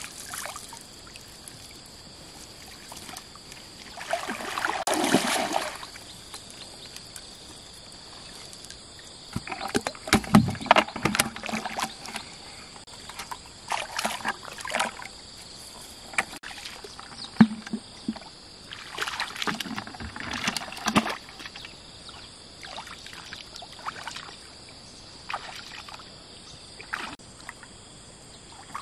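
Shallow pond water splashing and sloshing in irregular bursts as a person wades and works a bamboo-poled fishing net through it. A steady high insect drone runs behind it.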